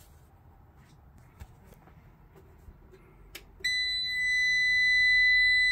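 Hybrid solar inverter's buzzer sounding one steady high-pitched beep for about two seconds, starting a little past halfway and cutting off suddenly, as the inverter is switched off with its grid supply disconnected.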